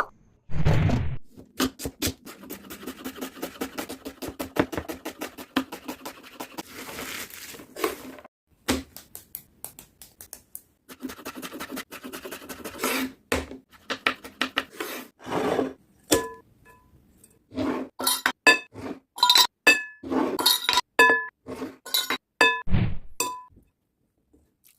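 Kitchen preparation sounds: utensils and dishes clinking, tapping and scraping, with long runs of quick small clicks in the first half and a series of separate sharp clinks with a brief ringing tone in the second half.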